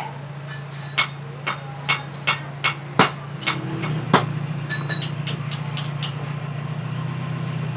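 Hammer striking a handled cutting chisel set across a steel flat bar on an anvil: about eight sharp, ringing metallic blows roughly every half second, the loudest about three seconds in, followed by a few lighter taps. A steady low hum runs underneath and grows louder about three and a half seconds in.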